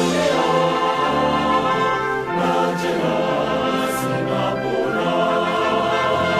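Background music: a choir singing sustained notes over orchestral accompaniment.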